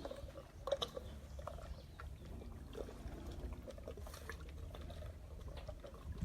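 African elephant calf gulping milk from a feeding bottle: scattered small wet clicks and sucking sounds over a low background rumble.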